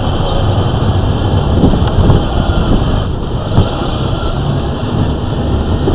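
Power Wheels ride-on toy car driving: a steady, loud rumble and clatter of its plastic wheels over pavement, with the hum of its electric drive, picked up close by a camera mounted on the car.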